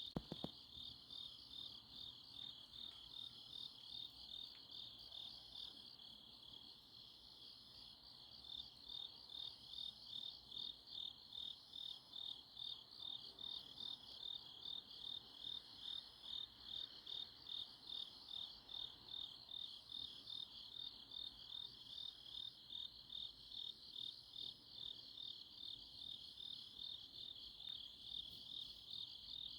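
Autumn-night chorus of grass insects chirping steadily in a high, pulsing trill, the rhythm beating about twice a second, with a fainter, higher chirp repeating every second or so.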